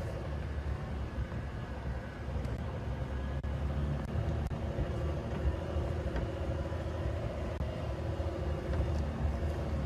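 Safari game-drive vehicle's engine running steadily as the vehicle drives at low speed, a continuous low rumble.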